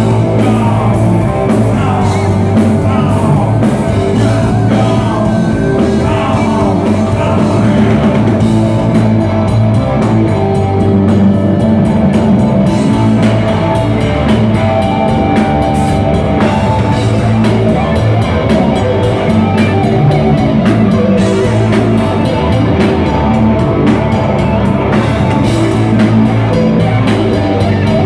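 A live hard rock band playing loud: distorted electric guitar, keyboards and a full drum kit, with a male lead vocal in the first several seconds.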